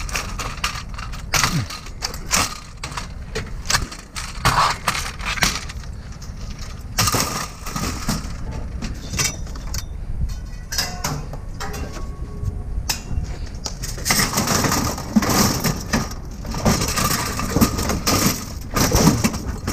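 Irregular clanking, knocking and rattling of metal scrap being handled, with a busier stretch of clatter in the second half.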